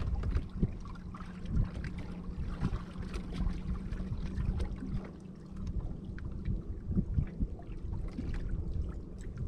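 Sounds of a small fishing boat sitting on the water: low wind rumble and water lapping with scattered light knocks. A steady low hum stops about two-thirds of the way through.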